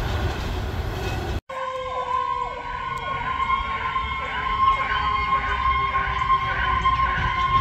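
Freight train cars rolling past for about the first second and a half. Then, after a cut, an emergency vehicle's siren sounds with quick repeated sweeps over a steady tone.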